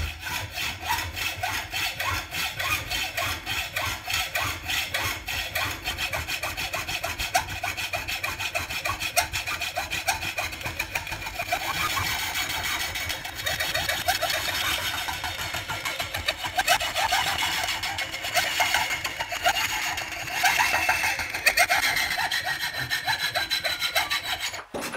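Hand hacksaw cutting through a steel bar clamped in a bench vise, with fast, even back-and-forth strokes; the footage is sped up.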